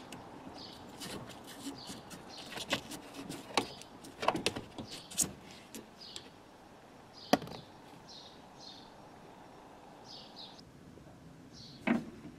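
Upper mount parts of a Toyota Yaris rear shock absorber strut being handled and lifted off by hand: a rubber bushing and washer coming off the piston rod, giving irregular clicks and knocks. The sharpest knock comes about seven seconds in and another near the end. Faint short chirps repeat in the background.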